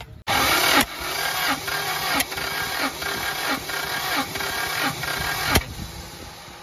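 Honda Accord Maestro's engine being cranked by the starter motor for about five seconds without catching, with a slow pulsing rhythm, starting and stopping abruptly with a click. This is a hard-starting car during carburettor adjustment.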